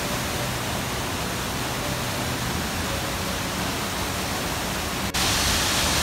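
Steady rush of a waterfall, whitewater pouring over rock ledges. About five seconds in the sound cuts abruptly to a louder, hissier rush.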